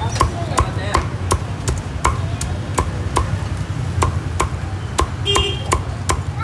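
A cleaver chopping crisp-skinned roast pork on a thick wooden chopping block, in steady even strokes about three a second.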